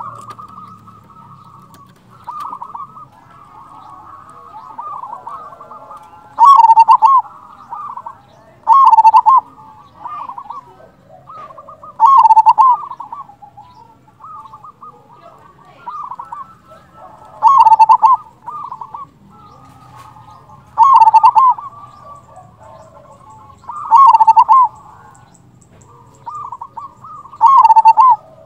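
Zebra dove (perkutut) singing: seven loud rolling coo phrases, each about a second long and repeated every few seconds, with fainter cooing in between.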